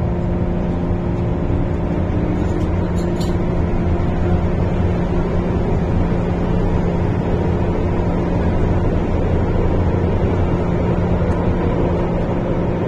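Inside an MTR M-Train subway car running at steady speed: a continuous rumble of wheels on rail, with a constant motor hum on top that holds its pitch.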